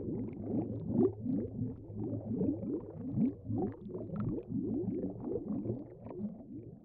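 Low bubbling, gurgling sound effect, many quick bubbly blips a second over a steady low hum, fading out toward the end.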